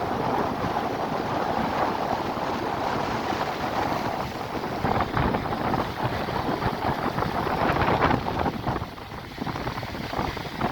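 Wind buffeting the microphone in gusts, over the sea's surf.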